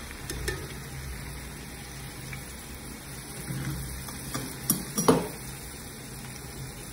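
Steady frying sizzle from oil in a cooking pan, with a few sharp clicks and knocks; the two loudest come close together about five seconds in.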